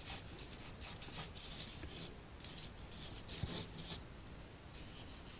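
Charcoal stick scratching across drawing paper in a run of faint, short sketching strokes, with a few brief pauses.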